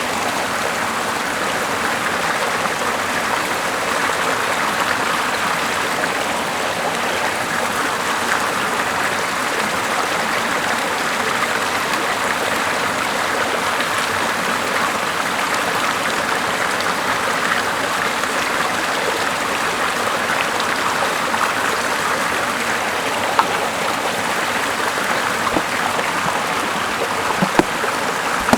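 Steady rushing of running water, with a few faint clicks near the end.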